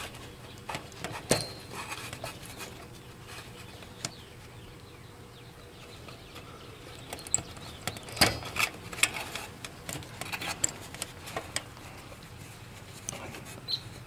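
Gloved hands working crankcase heater wires loose from an air-conditioner contactor: scattered clicks and knocks of the quick-connect terminals and wire handling, in clusters around the first second, the middle and near the end, over a faint steady hum.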